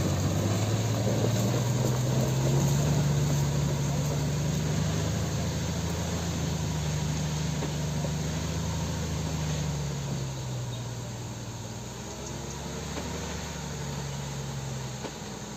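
Diesel engine of a heavy log-laden truck running under load as it drives off, a steady low note that rises slightly about two seconds in and grows fainter after about ten seconds as the truck moves away.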